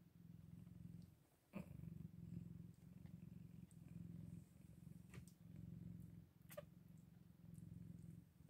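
Nursing mother cat purring, a low purr that comes in even cycles of about one breath a second. A few brief clicks sound over it, the loudest about a second and a half in.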